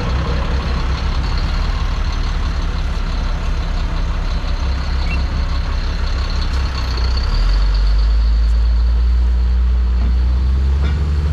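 Engine of a dump truck loaded with broken concrete, running steadily as it pulls away. It grows louder and deeper from about seven seconds in as it accelerates.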